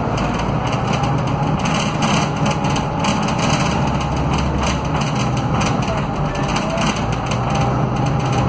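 Scania DC09 five-cylinder diesel and hub-reduction rear axle of an articulated bus, heard from inside the rear passenger cabin: a steady low engine drone with a faint gear whine that dips in pitch around the middle and rises again.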